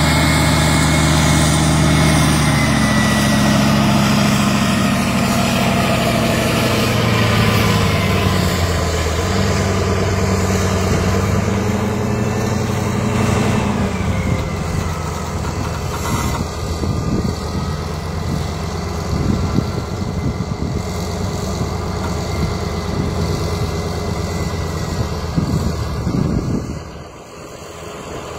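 ACO 460 articulated tractor's 612 hp Mercedes V10 biturbo diesel engine running under load as it pulls a disc tillage implement past. The engine pitch shifts a little in the first half. From about halfway the sound turns rougher, with irregular knocks and rattles as the implement goes by close, and it drops in level near the end.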